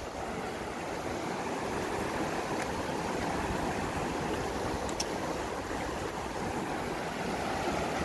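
River rapids rushing over and around rocks: a steady rush of white water.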